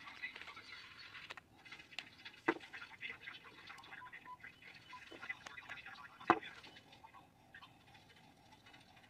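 Light handling clicks and taps of a plastic practice hand and its nail tips being fitted, with two sharper clicks about two and a half and six seconds in.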